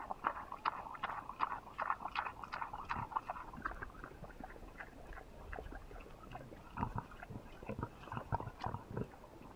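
A pig eating mushy apples, chewing and smacking with its mouth open in a rapid run of short wet smacks and crunches. The chewing is busiest in the first few seconds, eases off mid-way, and picks up again near the end as it takes more from the tub.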